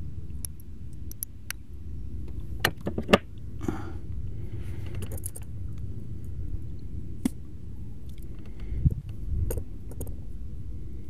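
Small clicks and rustling from hands handling fishing tackle (line, hook and a plastic bag) while tying on a hook, over a steady low rumble. The sharpest clicks come about three seconds in, and there is a dull thump near the end.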